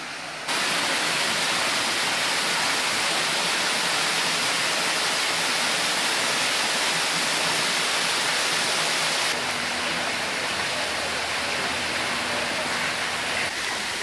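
A small waterfall splashing into a rock pool, a steady rushing hiss of falling water. About nine seconds in it drops a little in level.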